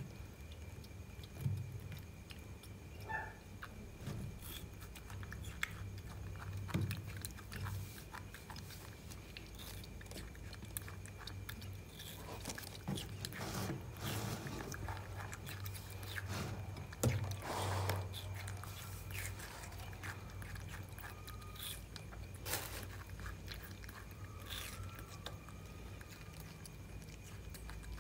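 A baby macaque biting and chewing juicy watermelon, with scattered small crunches and wet smacks, and now and then a knock or scrape as pieces are handled on the plate.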